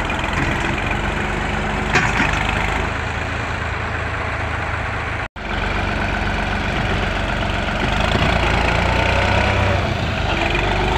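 New Holland 3630 tractor's three-cylinder diesel engine running steadily, a little louder for about two seconds late on. The sound cuts out for an instant about five seconds in.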